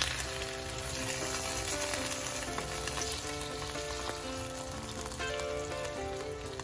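Chicken breasts frying in olive oil in a hot pan: a steady sizzle. Soft background music plays under it.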